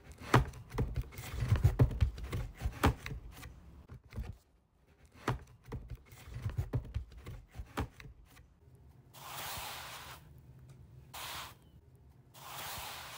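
Cardboard box being opened and handled: a run of clicks, knocks and rustles as the flaps are worked open and the box is tipped over, then three scraping hisses as the inner packaging slides out of the box.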